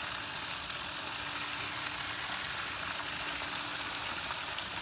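Steady hiss with a faint low hum underneath.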